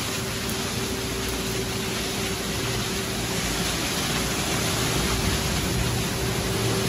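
Automatic tunnel car wash running: a steady rushing noise of spray and air, with a constant motor hum under it.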